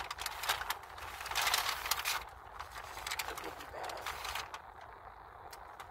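Paper fast-food takeout bag rustling and crinkling as it is handled and searched. The crinkling is loud for the first two seconds, then comes again briefly about four seconds in.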